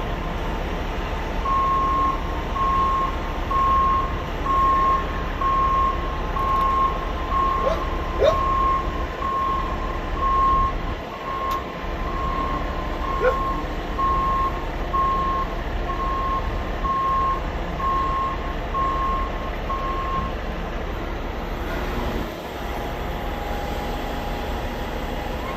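Diesel engine of a Cat 926 wheel loader running steadily while its backup alarm beeps at a single pitch about once a second, stopping about 20 seconds in.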